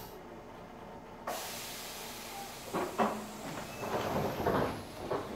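Tobu electric train standing at a station platform: a hiss of air and a few short knocks, starting about a second in.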